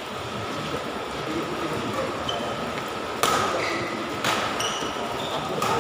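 Badminton rally: rackets strike the shuttlecock three times, sharp cracks about a second apart in the second half. Short high squeaks, typical of shoes on the court floor, come between the hits over a steady background hiss.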